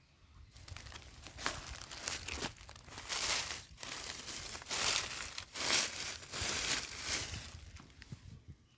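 Dry fallen leaves crackling and rustling in a string of bursts as a hand pushes them aside in the forest leaf litter.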